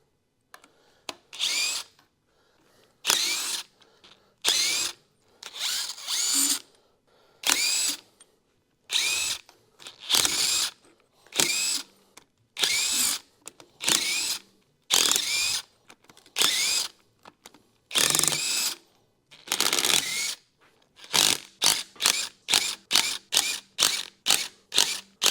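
Power drill spinning bolts off a Ford 300 inline-six engine: bursts of the motor about every second and a half, each winding up in pitch as it starts. Near the end comes a quick run of short blips, about three a second.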